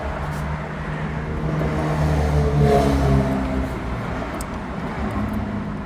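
A car engine running, its hum swelling to a peak about three seconds in and then fading.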